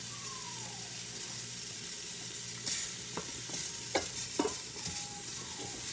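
Shrimp frying in oil in a skillet, a steady sizzling hiss with a few light clicks about three to four and a half seconds in.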